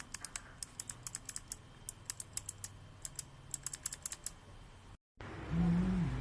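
Typing on a keyboard with Kailh Box White clicky switches: quick, irregular runs of sharp clicks for about four seconds. About five seconds in the sound cuts out and gives way to a louder low hum.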